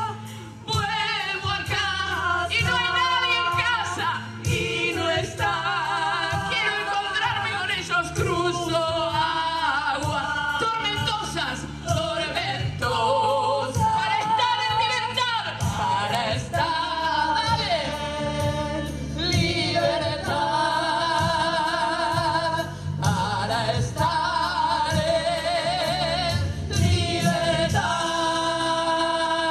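A group of singers, led by a female singer, singing a song together into microphones, with steady low accompaniment underneath.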